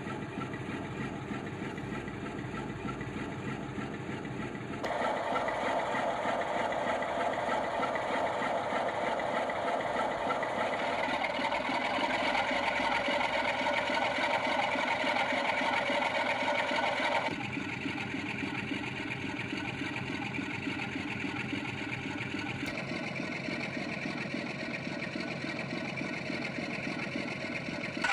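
Recorded Class 47 diesel locomotive engine sound (Sulzer twin-bank diesel) played by a DCC sound decoder through a small model-railway speaker. The engine runs steadily, steps up in power about five seconds in and again around ten seconds, then drops back around seventeen seconds.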